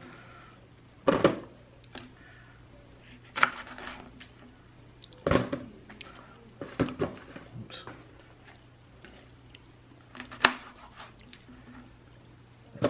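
Kitchen knife slicing pieces of fresh pineapple in half against a cutting board: five separate cuts a second or more apart, each a short knock with a wet crunch.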